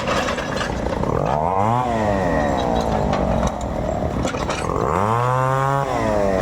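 Two-stroke chainsaw revved twice, its pitch climbing and then dropping back each time, over a steady engine running underneath.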